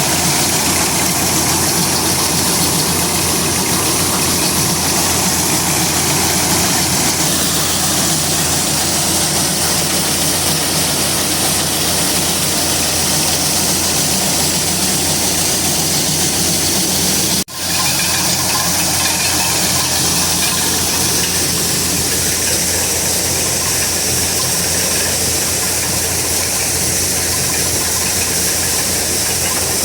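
Corn harvesting machine running steadily: a continuous engine hum under a constant rushing mechanical noise. It drops out for an instant about halfway through.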